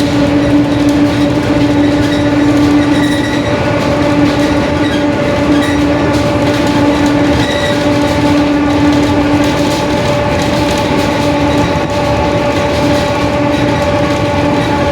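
Mercedes-Benz OF-1721 BlueTec 5 bus under way, its drivetrain running with a strong steady whine over a dense rumble, the howl of the differential. The whine briefly drops out a few times.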